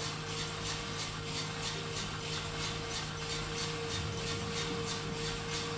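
Skywalker electric drum coffee roaster running mid-roast, its drum turning with beans inside at about 178 °C, before first crack. A steady hum with a faint, even ticking about four times a second.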